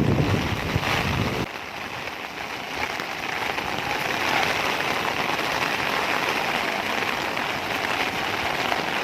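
Steady hiss of heavy rain falling, with a low rumble during the first second and a half.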